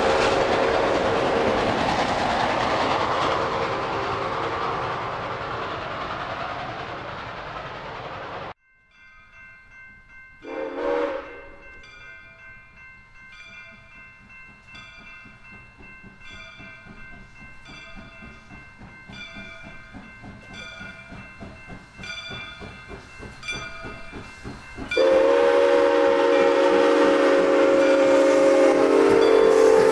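ALCO 2-8-2 Mikado steam locomotive Soo Line 1003 running past and fading away. After an abrupt cut comes a quiet stretch of steady high tones and soft regular beats, with one short whistle toot. About 25 seconds in, the locomotive's steam whistle blows a long, loud blast.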